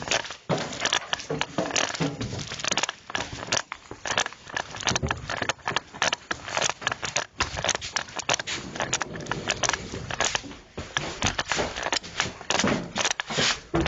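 Dense, irregular crackling and rustling close to the microphone, typical of an officer's clothing and gear rubbing and knocking against a body-worn camera while moving.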